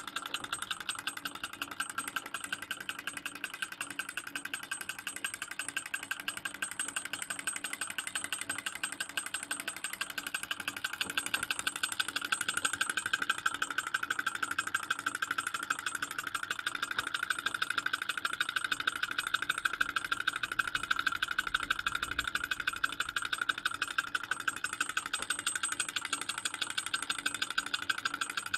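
Small two-cylinder model Stirling engine running at speed: a rapid, even mechanical rattle from its pistons and crank, too fast to count.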